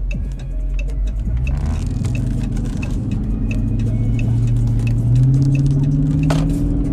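Chrysler 300S's 5.7 L Hemi V8 accelerating, its engine note climbing in pitch and loudest about five seconds in. A light regular tick sounds about every two-thirds of a second.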